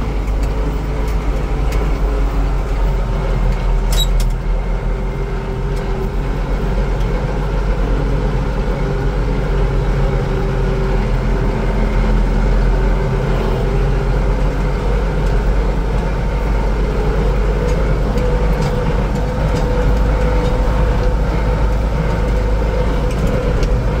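Farm tractor engine running steadily, heard from the cab, with a single sharp click about four seconds in.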